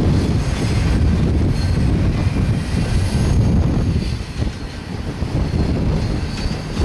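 Freight train of covered hopper cars rolling past: a steady low rumble of steel wheels on rail, with a few brief faint high squeals.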